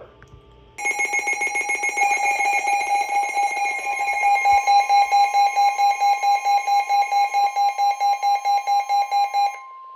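A weather radio's alert alarm beeping rapidly, with the steady 1050 Hz NOAA Weather Radio warning tone underneath; the beeping stops near the end and the 1050 Hz tone carries on alone for about a second. Together they announce a new warning.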